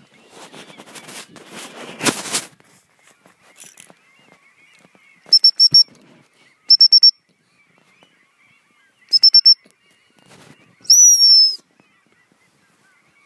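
Gundog training whistle blown in three bursts of three or four quick, high pips, then one longer wavering blast near the end. Repeated pips like these are the usual signal calling a retrieving dog back.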